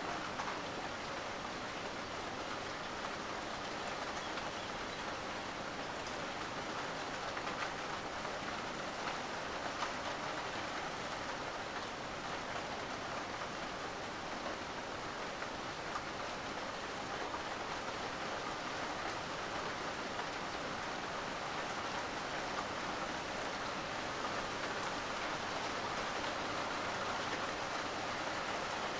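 Steady rain falling in a thunderstorm, an even hiss with a few brief louder ticks.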